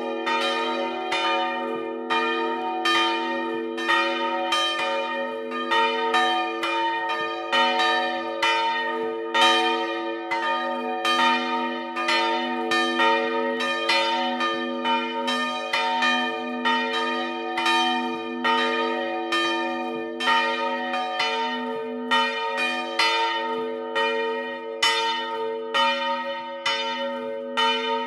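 Several of the church's swinging bronze bells, from a four-bell set tuned b¹–es²–f²–h², ringing together in a peal. Their clappers strike in overlapping strokes about twice a second over a steady low hum.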